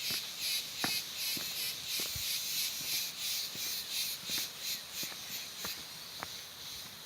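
An insect calling in fast pulses of high buzzing, about four a second, fading out near the end, with scattered light clicks.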